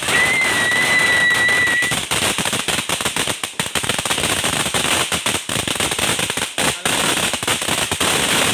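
Ground fountain firework spraying sparks with a dense, loud crackle of many small pops. A steady high whistle sounds over it for the first two seconds.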